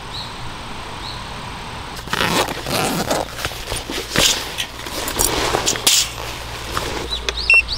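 Handling noise of a small portable power bank being picked up, turned over and set down on a metal mesh camp table: irregular rustling and scraping with a few sharp knocks, starting about two seconds in. A bird chirps faintly at the start and near the end.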